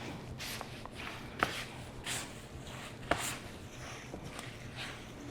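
Faint kitchen handling: a utensil scraping and clicking against a mixing bowl as butter and sugar are creamed by hand, with two sharper knocks about a second and a half and three seconds in.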